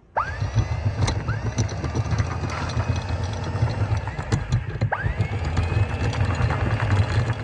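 Sailboat anchor windlass paying out chain to anchor: a steady rattling clatter of chain links over the gypsy and bow roller, with a low rumble and a whine that rises in pitch and levels off about three times. It starts suddenly and stops abruptly at the end.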